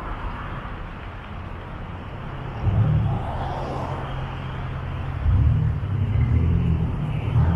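Road traffic passing on a city street, a steady wash of car noise with deeper rumbling swells about two and a half and five seconds in.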